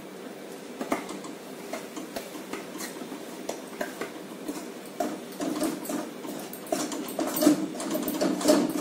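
A metal spatula scraping and knocking rapidly against a kadai as wheat flour is stirred and roasted in ghee. The quick run of clicks gets busier and louder about five seconds in.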